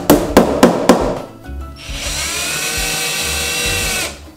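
A hammer strikes a wooden furniture panel about four times a second for the first second. About two seconds in, a cordless drill spins up and runs steadily for about two seconds, driving a screw into the particleboard shelf, then cuts off suddenly.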